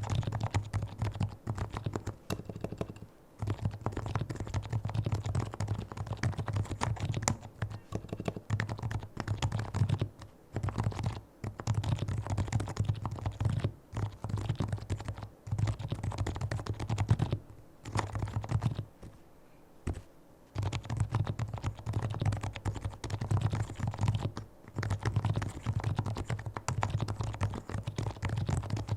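A fully lubricated Leopold FC660C Topre electrostatic-capacitive keyboard being typed on in quick, steady runs of keystrokes. There are brief pauses, with a longer one a little past the middle.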